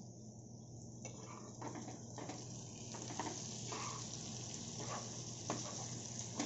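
Egg masala sizzling in a non-stick frying pan, with a metal spatula scraping and stirring through it from about a second in, over a low steady hum.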